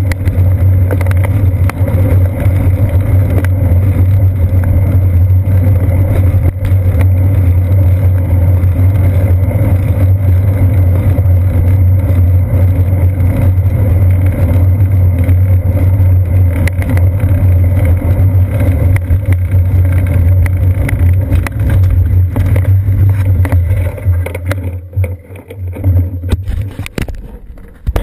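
Steady low rumble of riding noise from a seat-post-mounted GoPro Hero 2 on a moving bicycle, road vibration and wind on the camera. It fades and breaks up near the end as the bike slows to a stop.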